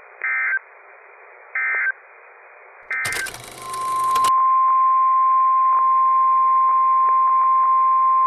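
NOAA Weather Radio broadcast: three short, buzzy SAME digital data bursts about a second and a half apart, the end-of-message code closing the watch message. A second of crackling noise follows, then the loud, steady 1050 Hz warning alarm tone comes on about three and a half seconds in, flecked with faint radio static clicks. The tone announces the coming severe thunderstorm warning.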